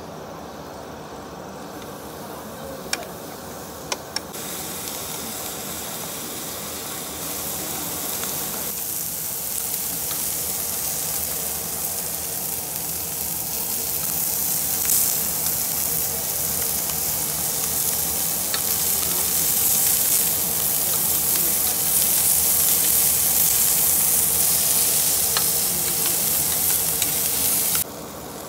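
Sliced duck sizzling on a round tabletop grill plate, a steady frying hiss that grows louder as the meat cooks and is loudest in the second half, then cuts off suddenly near the end. Two or three sharp clicks sound about three to four seconds in.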